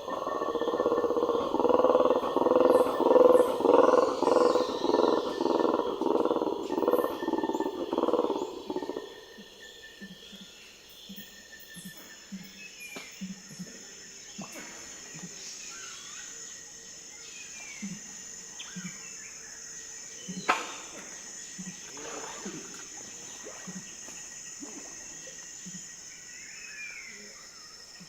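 Rainforest ambience: a loud, rhythmic croaking animal chorus for about the first nine seconds, then stops. After it come steady high insect tones, scattered short bird calls and soft low pings, with one sharp click about twenty seconds in.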